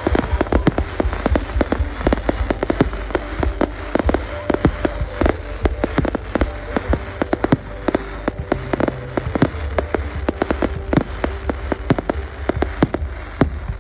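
Fireworks display going off: a dense, unbroken string of bangs and crackles, several a second.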